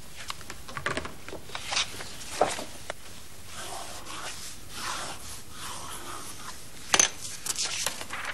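Pencil writing on paper at a wooden desk: short scratching strokes and small knocks, with one sharper click about seven seconds in, over a steady hiss.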